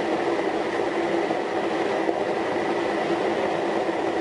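Water boiler heating water: a steady rushing hiss with a faint constant hum underneath.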